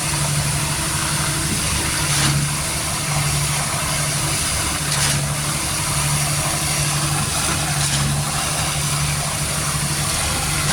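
Engine of concrete-pouring machinery, such as a mixer truck or pump, running steadily. Its low hum swells and eases every second or so, with a couple of faint knocks, about two and five seconds in.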